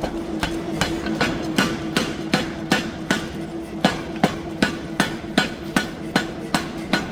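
Pneumatic power hammer striking hot steel in quick, even blows, about two to three a second, as a square billet is forged round. A steady machine hum runs underneath.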